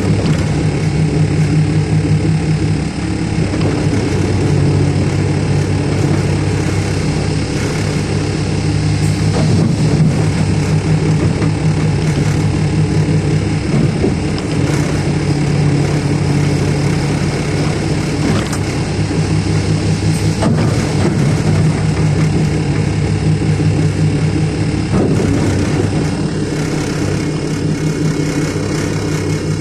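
Heavy diesel engine of earthmoving equipment running steadily, with a few scattered knocks over it.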